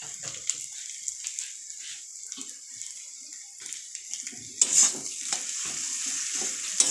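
Boiled potatoes and spices frying in oil in a kadai, a steady sizzle, with a metal spatula scraping and knocking against the pan as the potatoes are mashed and stirred. The stirring strokes get much louder about four and a half seconds in.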